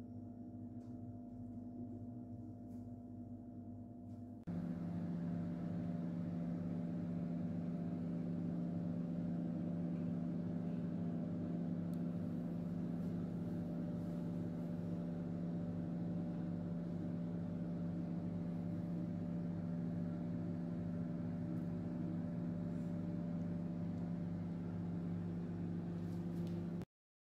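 A steady low hum of several held tones. It grows louder with an added lower tone about four and a half seconds in, then cuts off abruptly just before the end.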